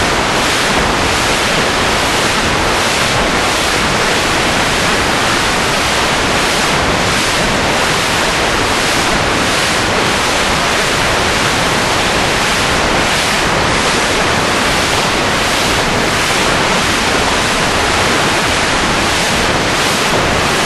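Loud, steady rushing noise like static or surf, with a faint regular pulsing in the hiss less than twice a second.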